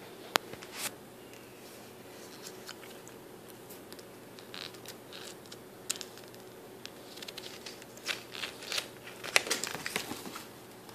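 Pages of a spiral-bound paper booklet being handled and turned: scattered paper rustles and sharp clicks, busiest from about eight to ten and a half seconds in.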